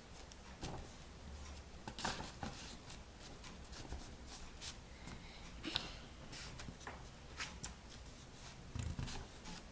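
Faint rustling of paper and scattered light taps as a hand presses glued paper flat inside a paper dollhouse box.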